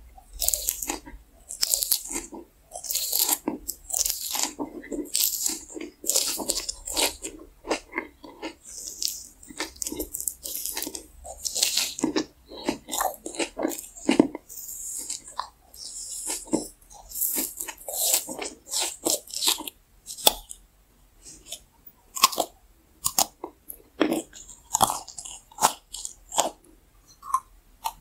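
Close-miked chewing and biting of sugar-coated gummy candy: a steady run of irregular crunches and mouth clicks.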